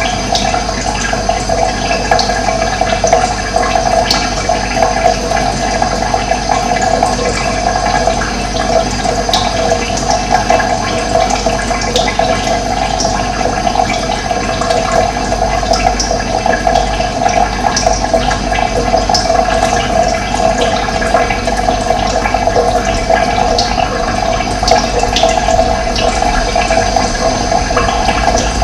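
Running water: a steady, continuous rush of flowing water.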